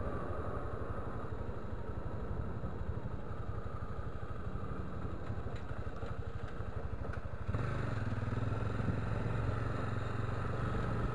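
Motorcycle engine running as the bike rides along, with road and wind noise. About seven and a half seconds in, the engine's low hum becomes stronger and steadier.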